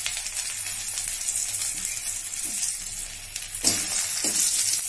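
Oil sizzling steadily in a kadai where green chillies are frying. About three and a half seconds in, peeled garlic cloves go into the hot oil, the sizzle jumps suddenly louder, and a spatula stirs them.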